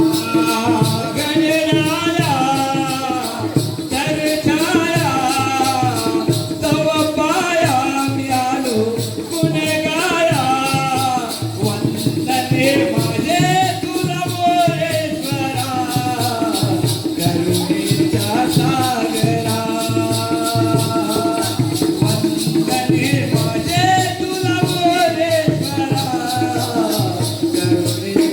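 Jakhadi folk music: a sung devotional melody over a steady, dense drum rhythm and a continuous rattling jingle of small cymbals or bells.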